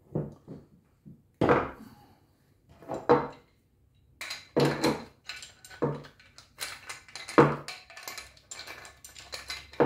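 Brass pump fittings and steel spanners clinking and knocking on a wooden workbench as a vane pump head is assembled by hand: a string of irregular sharp knocks, some ringing briefly, more frequent in the second half.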